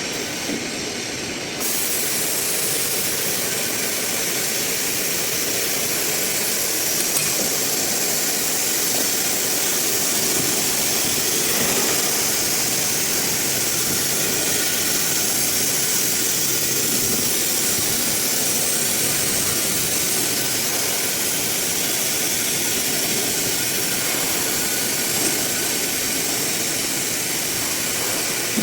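Blue Elephant ELECNC1836 CNC nesting router running: a steady, loud machine hiss that steps up and turns brighter about a second and a half in, then holds steady.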